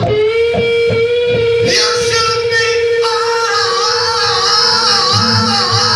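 Live rock band playing: one long held note runs through, over a few drum hits early on and electric guitar and band sound that fills in after about two seconds.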